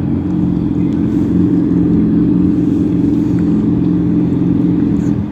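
A steady, loud low engine hum that drops away abruptly at the end.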